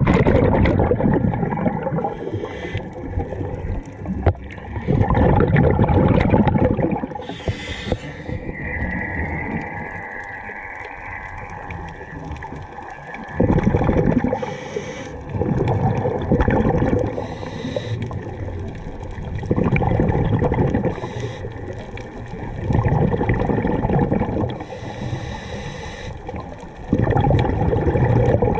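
Scuba diver breathing underwater through a regulator: exhaled bubbles burble out in bursts about every three or four seconds, with short hisses of inhaling in between.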